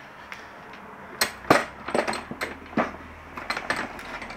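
Metal parts clinking and knocking against a bench vise as an end-link part is set between its jaws, a run of sharp clicks with the loudest about a second and a half in.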